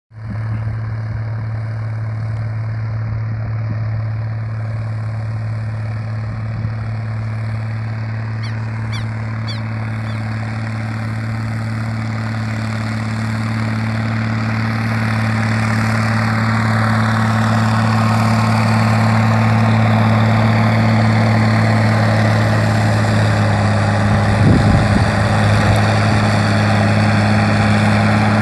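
Heavy vehicle engine rumbling loud and steady at one pitch while coasting downhill, the whole sound growing louder through the second half.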